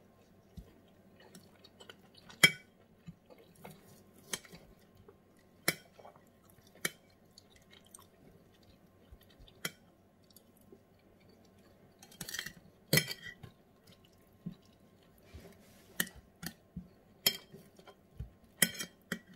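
Close-up eating sounds: chewing braised pork, with a knife and fork clinking and scraping on a plate in about a dozen sharp, irregular clicks.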